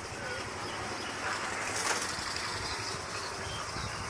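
An engine running steadily, with a short hiss about two seconds in.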